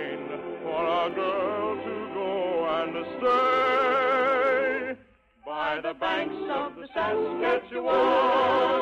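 Operetta singing with orchestra on a narrow-band 1950 radio recording: long held notes with a wide vibrato. The singing breaks off briefly about five seconds in and comes back to a loud held note near the end.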